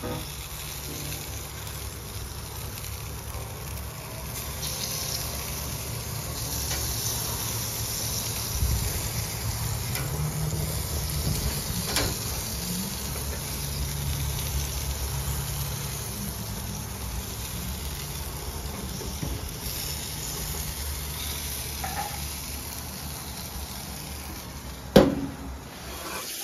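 Food sizzling on a barbecue grill: a steady hiss over a low rumble, with a sharp click near the end.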